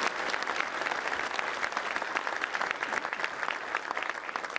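Audience applauding, a dense clapping of many hands that eases slightly toward the end.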